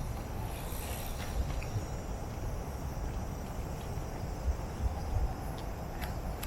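Outdoor city street ambience: a steady low rumble of traffic and wind with irregular soft thuds like footsteps, and a faint high insect buzz about a second in.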